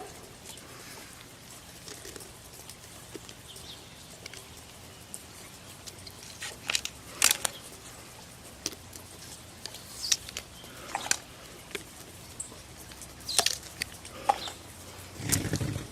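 Hand woodworking: scattered sharp taps and knocks of tools on wood, a second or more apart and irregular, with a louder knock near the end.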